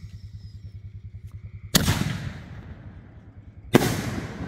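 Two loud bangs of aerial fireworks shells about two seconds apart, each trailing off in an echoing rumble; the second is a shell bursting into a shower of sparks.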